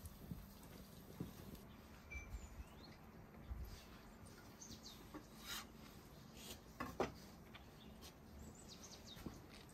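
Quiet outdoor ambience with a few small bird chirps and several soft pats and taps of hands shaping mashed-potato patties. The loudest tap comes about seven seconds in.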